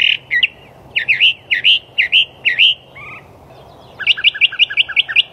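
Northern mockingbird singing: a string of short, repeated, sliding whistled notes, then near the end a fast run of about eight quick notes a second.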